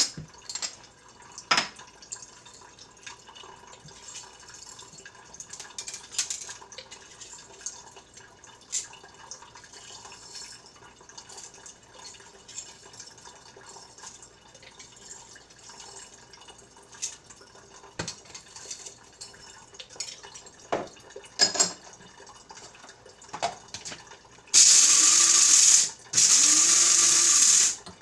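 A kitchen faucet runs in a thin stream, with scattered clinks of mugs and utensils on the counter. Near the end an electric coffee grinder runs loudly in two bursts of about a second and a half each, with a short stop between them.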